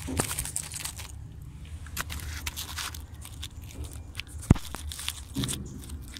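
Crackling, rustling handling noise with scattered clicks, made as a plastic pipe elbow and the camera are moved about, over a low steady rumble. One sharp knock comes about four and a half seconds in.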